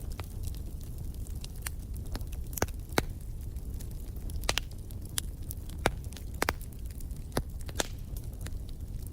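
Wood fire in a fireplace crackling: irregular sharp pops and snaps, a few of them louder, over a steady low rumble.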